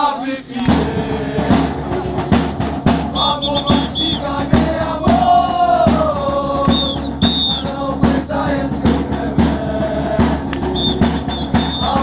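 Voices singing a chant over a steady drum beat of about two to three strokes a second.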